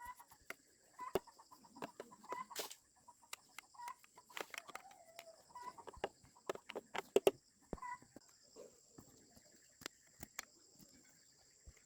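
Chickens clucking in short calls, mixed with scattered sharp clicks and knocks, over a steady high hiss.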